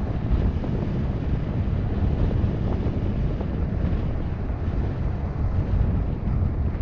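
Wind buffeting the microphone of a vehicle-mounted action camera at driving speed, with tyre and road noise underneath. It is a steady, low rumble throughout, with no engine note standing out.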